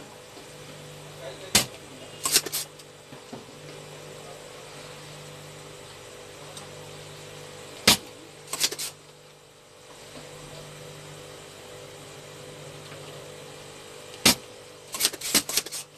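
Spring-loaded desoldering pump (solder sucker) snapping as it is fired to suck molten solder off circuit-board joints. There are three sharp snaps about six seconds apart, each followed by a short run of clicks.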